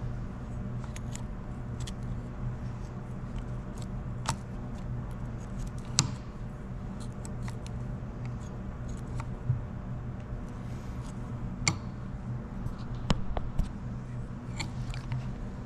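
Scattered light metallic clicks and taps of hand tools and small parts being handled as a lawn mower carburetor is unhooked from its governor linkage, the sharpest about six seconds in and again near thirteen seconds, over a steady low hum.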